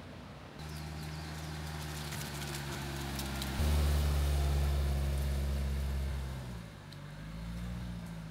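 Car engine running, a steady low hum that gets louder a few seconds in, then drops and rises again in pitch near the end.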